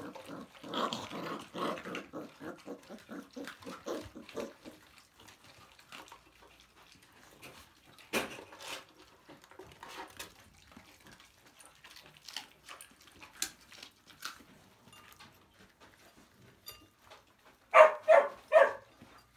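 Puppies vocalising while feeding on a piece of raw meat: a rapid, rattling growl in the first few seconds, quieter snuffling and chewing sounds, and three quick loud barks near the end.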